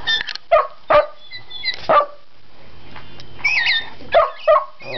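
Shetland sheepdog barking in short, sharp single barks, about five of them, while high chirping bird calls play from a small handheld bird-call identifier's speaker between the barks.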